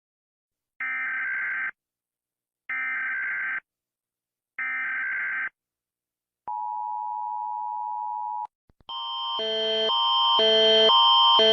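Emergency Alert System alarm: three short bursts of the screeching SAME header data tones, a steady attention tone for about two seconds, then a louder repeating multi-tone alarm pattern that starts near the end and swells, cycling about twice a second.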